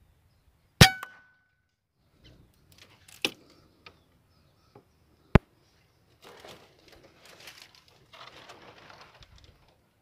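An air rifle firing at a spotted dove: one sharp shot about a second in with a short metallic ring after it. Two more sharp clicks follow a couple of seconds apart, then soft rustling.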